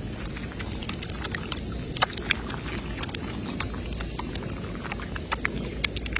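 Hands scooping and squeezing wet floating water plants on shallow water: scattered wet crackles and small splashes, with one sharper click about two seconds in, over a steady low rumble.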